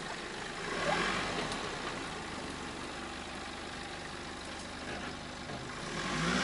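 Nissan Patrol 4x4's engine running as it reverses down a woodland track, swelling briefly about a second in and rising again near the end.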